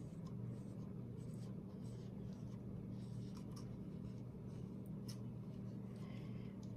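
Faint, intermittent scratchy rubbing of an upturned plastic cup being slid in small circles over a wet, paint-covered canvas, with a steady low hum underneath.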